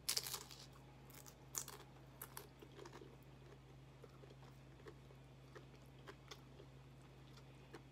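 A person biting into and chewing tortilla chips: one loud crunch at the start, a few more sharp crunches over the next two seconds, then fainter chewing.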